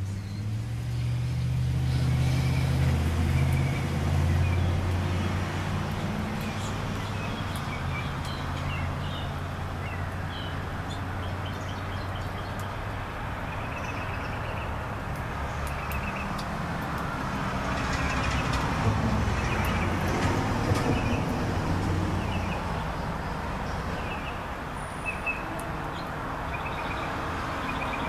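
Road vehicle passing, its engine hum strongest in the first few seconds and fading, with traffic noise swelling again about two-thirds of the way through. Small birds chirp over it in short repeated notes.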